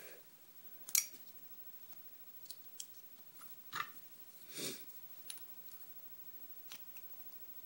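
Scattered small metal clicks and taps from handling a Euro cylinder lock as it is shimmed and taken apart: a sharp click about a second in and a duller knock at about four and a half seconds, with light ticks between.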